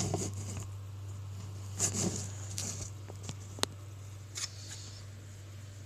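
Handling noise from a camera being set up and propped in place: rustling with scattered sharp clicks, the sharpest a little past halfway, over a steady low hum.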